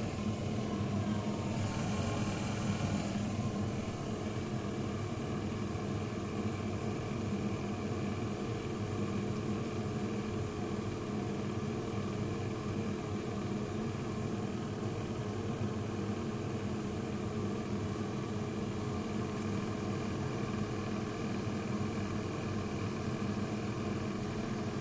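Steady growling, rattling hum from a failing door mechanism, the noise it made just before the door broke again.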